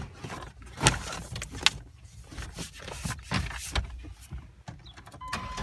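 Knocks and clicks of the Chevy Astro's interior engine cover being set back in place and fastened, with two sharp knocks in the first two seconds. Near the end a steady electronic tone comes on.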